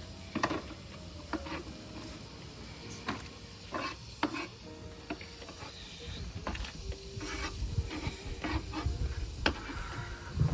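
A utensil stirring cabbage and carrots in a pot, knocking and scraping against the pot every second or so, over a faint sizzle of stir-frying.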